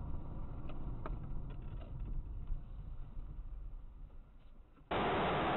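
Low, steady rumble of a car driving, picked up by a dashboard camera inside the cabin, with a few faint clicks; it fades down and about five seconds in cuts abruptly to a loud, steady hiss.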